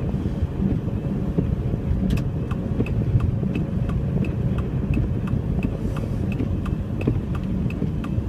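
Car engine and tyre rumble heard inside the cabin on a snowy road. From about two seconds in, a turn signal clicks steadily with an alternating tick-tock, signalling the turn into a driveway.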